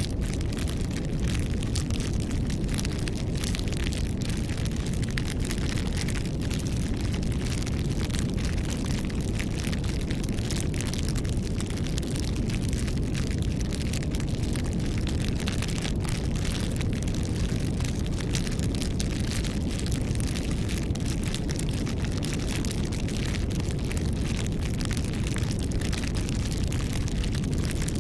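Campfire burning, with a steady low rush from the flames and constant dense crackling of the burning wood.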